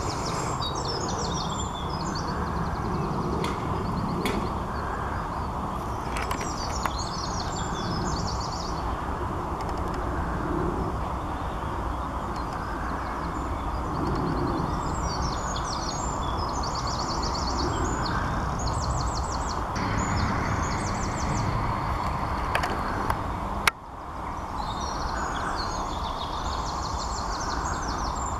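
Steady outdoor background rumble with a small songbird singing short, high chirping phrases every few seconds. A single sharp click with a brief drop in sound comes about three-quarters of the way through.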